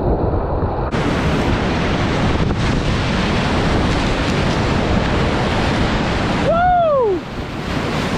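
River whitewater rushing loudly around a kayak, mixed with wind buffeting the microphone. Near the end a person gives a short whoop that rises and then falls in pitch.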